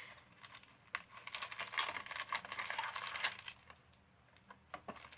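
Plastic snack packaging crinkling and rustling, with quick light clicks as small filled biscuits are handled in it, starting about a second in.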